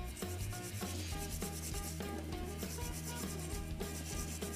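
A stainless steel scourer scrubbing a mussel shell under running tap water: fast, rhythmic scraping strokes, several a second, scrubbing the impurities off the shell.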